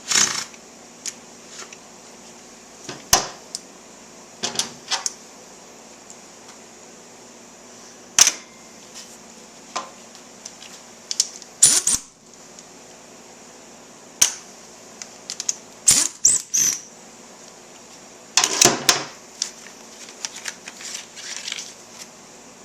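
Scattered metallic clicks and clinks of hand tools and small bolts as the fork guard and brake line clamp are unbolted from a motorcycle's front fork, with a busier patch of clatter near the end.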